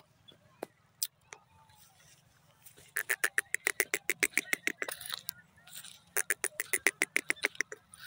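Grey francolin calling: two runs of rapid, sharp repeated notes, about six or seven a second, the first starting about three seconds in and the second about six seconds in.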